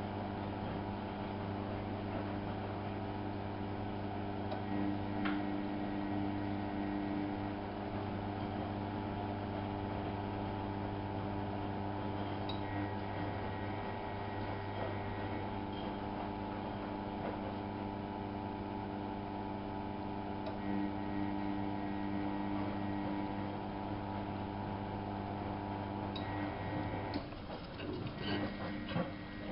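Miele Novo Super W933 washing machine running with a steady electric hum. The hum changes and breaks off about 27 seconds in, and a few clicks and knocks follow.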